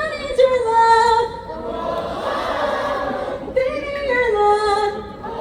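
A female singer sings two short unaccompanied phrases into a microphone, about a second in and again near the end, and a crowd sings the line back between them, call and response.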